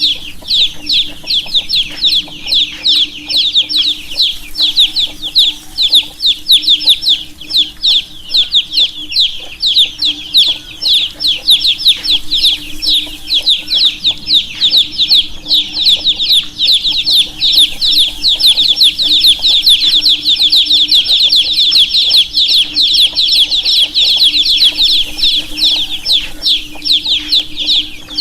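A brood of baby chicks peeping continuously, many short high-pitched peeps overlapping several times a second, with a faint steady low hum underneath.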